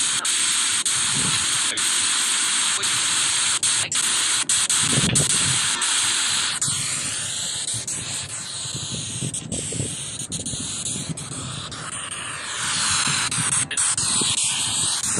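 A loud, steady hiss of noise, with many brief dropouts and slowly sweeping changes in its tone.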